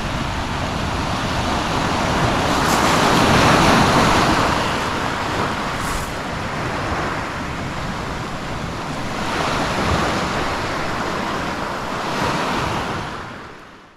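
Surf washing onto the shore in slow swells, loudest about four seconds in, with smaller surges near ten and twelve seconds; it fades out near the end.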